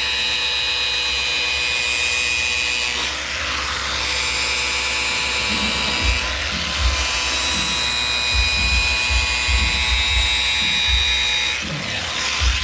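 Handheld electric power sander with a round pad running against an aluminium truck fuel tank, sanding it in preparation for polishing. A steady motor whine over the rasp of the pad, with uneven low bumps from about six seconds in as the tool is worked across the surface.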